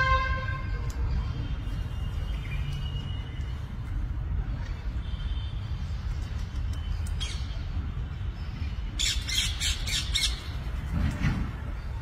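Alexandrine parakeets calling: a few faint short calls, then a loud burst of harsh, rapid squawks about nine seconds in, over a steady low rumble.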